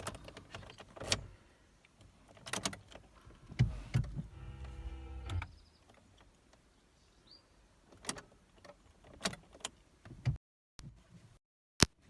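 Clicks and knocks in a Kia ceed before its engine is started, with a short electric motor whine lasting about a second and a half, about four seconds in. The sound cuts out twice near the end.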